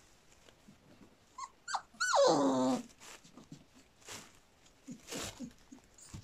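American Collie puppy giving two short squeaks, then one loud whining cry about two seconds in that falls steeply in pitch. A few faint rustles follow.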